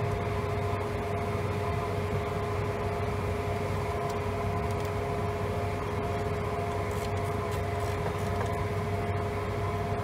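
Steady cockpit noise of a twin-engine business jet in flight: airflow and engine hum with a thin, steady whine running under it. The aircraft is flying on one engine after a bird strike shut down the right engine.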